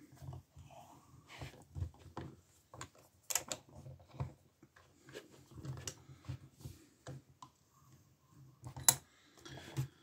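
Scattered light metal clicks and scrapes of lock picks working a small brass lever lock held in a vise, with faint low knocks from handling it.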